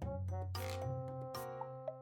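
Background music: an instrumental track with a bass line, held notes and a steady beat of cymbal-like strokes.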